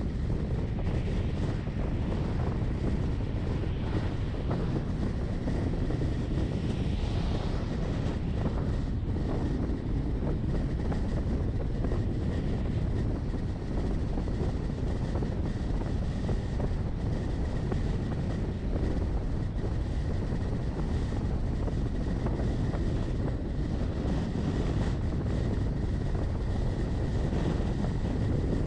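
Steady low rumble of a moving vehicle driving on the road, heard from on board, with a faint steady high whine.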